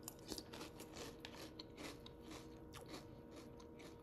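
Faint, irregular crunching of someone chewing food close to the microphone, a few small crisp crunches each second.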